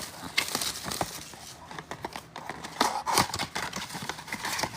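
Trading-card packs being handled and opened: irregular clicks and taps with short crinkling, tearing rustles of foil wrappers.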